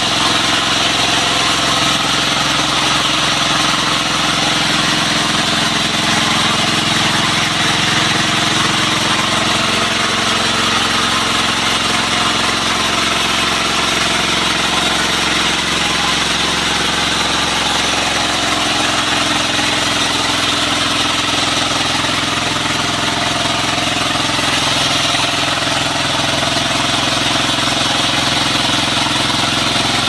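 Homemade engine-driven band sawmill cutting lengthwise through a log: the engine runs steadily under load while the band blade hisses through the wood.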